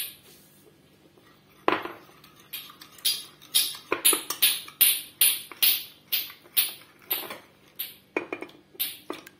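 Metal spoon clinking and scraping against a ceramic bowl while stirring flour and water into a batter, a rhythmic run of about two to three clinks a second starting about two seconds in.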